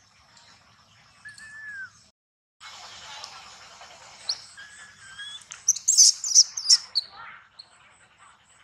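High-pitched animal squeals and chirps: a short falling whistle first, then a cluster of loud, sharp squeaks about six seconds in, ending in a falling cry.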